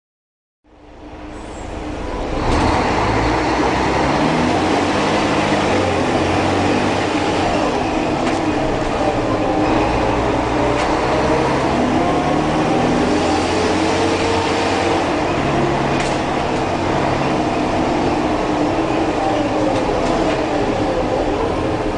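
Mercedes-Benz O-500UA articulated bus's OM-457 LA six-cylinder diesel running, loud and continuous after fading in over the first two seconds. A whining tone rises and falls in pitch along with the engine, in keeping with the bus pulling through its ZF 6HP600 six-speed automatic gearbox.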